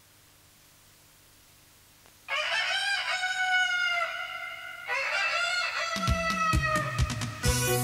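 Near silence, then a rooster crowing twice, each crow a long call lasting a couple of seconds. About six seconds in, drum hits start, and the band's folk-pop music follows.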